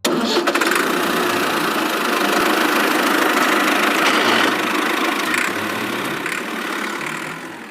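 A small motor running steadily with a dense, hissy buzz, starting abruptly and fading out near the end.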